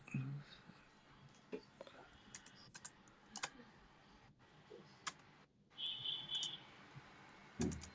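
Faint, scattered clicks and taps of a computer keyboard and mouse. A short high-pitched tone about six seconds in, and a dull thump just before the end.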